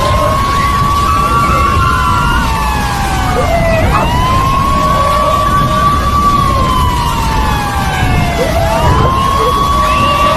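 Emergency vehicle siren wailing: each cycle rises quickly, holds a high note, then falls slowly, repeating about every four and a half seconds, with fainter overlapping siren tones. A steady low rumble runs underneath.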